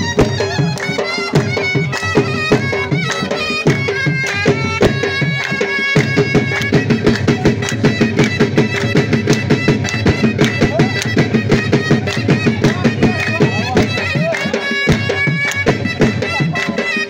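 Brahui chap folk dance music: a drum beat under a melody instrument playing over a held drone. About six seconds in, the drumming settles into a fuller, quicker, even beat.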